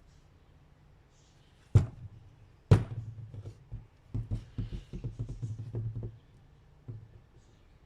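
Two sharp knocks, then a quick irregular run of lighter taps and clicks and one last tap near the end, over a steady low hum.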